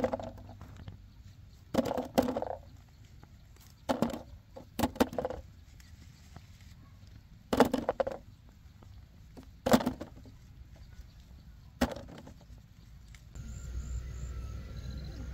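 Small green apples dropping by hand into a woven bamboo basket: a series of short, dull knocks every second or two as each fruit lands on the others. Near the end they give way to a steady outdoor background.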